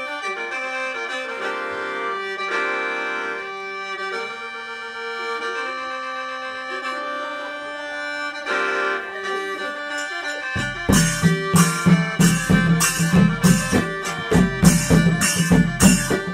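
Khaen, the Isan bamboo free-reed mouth organ, playing a slow melody over a held drone chord. About two-thirds of the way through, drums and percussion come in with a steady beat.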